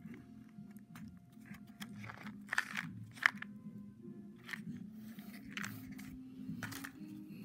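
Soft background music with irregular short, sharp crunching scrapes of a cardboard tube being handled, the loudest about two and a half and three seconds in.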